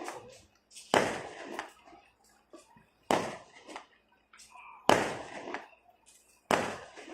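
Fireworks going off: four loud bangs about a second and a half to two seconds apart, each trailing off in a fading rumble with smaller crackles.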